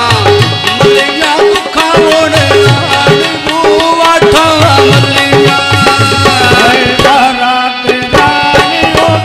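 Live folk song: a man singing to a harmonium he plays, over a hand drum beating a steady rhythm. The drum drops out for about a second near the end, then comes back.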